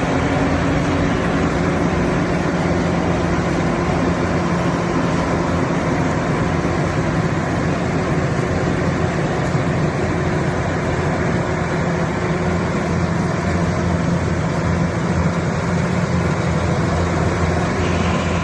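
A rice harvesting machine's engine running steadily at constant speed, a low, even hum with no change in pitch or load.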